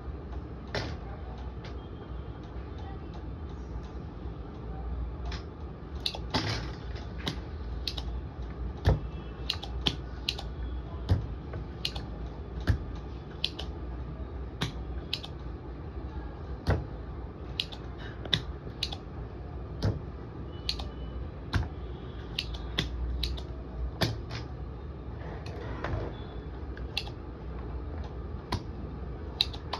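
Spring-loaded desoldering pump (solder sucker) being cocked and fired while components are desoldered from a charger's circuit board: dozens of sharp clicks at irregular intervals over a low steady hum.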